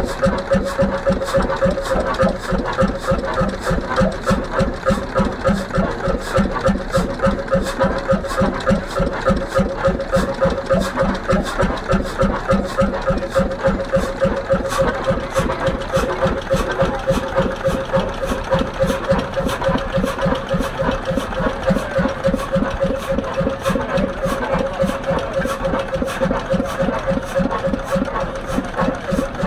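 A 1925 Heimdal 12 hp single-cylinder two-stroke semi-diesel engine running steadily at idle, an even beat of firing strokes. A steady hum runs under the beat.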